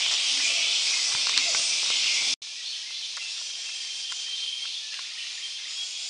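A steady, high-pitched chorus of forest insects such as cicadas and crickets. It cuts out for an instant a little over two seconds in and comes back quieter, with a few faint ticks.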